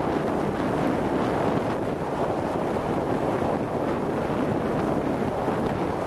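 Steady wind rush over the microphone of a camera riding on a moving TGB Blade 550 quad bike, with the quad's engine running underneath.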